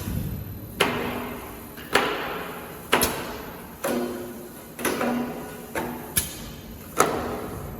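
Paging machine feeding items one at a time onto a checkweigher conveyor: a sharp clack about once a second as each item is separated and dropped onto the belt, some with a short ringing tail.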